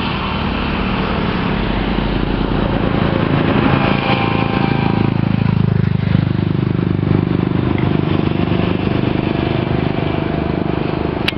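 Road traffic on a highway, heard from above: motorcycles, a bus and other vehicles running by with steady engine and tyre noise. A heavier vehicle's engine note dips and rises as it passes close, about halfway through.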